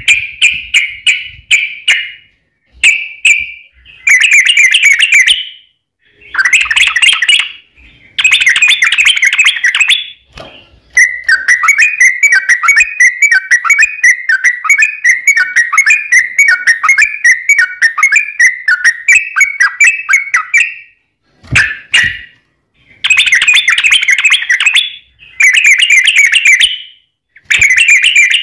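Yellow-vented bulbul (trucukan) singing loudly in bubbly, liquid phrases of a second or two with short pauses between them. In the middle it breaks into one long rapid run of song lasting about ten seconds, the 'ropel panjang' of a bird in full song.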